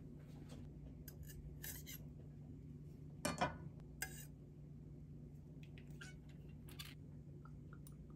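Metal garlic press squeezing garlic cloves over a bowl of sliced beef: a few short metallic clicks and crunches, the loudest about three seconds in, over a low steady hum.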